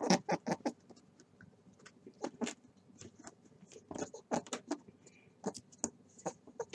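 Lop-eared rabbit grooming, licking and nibbling at its forepaws and face: small, uneven clicks and ticks, several a second.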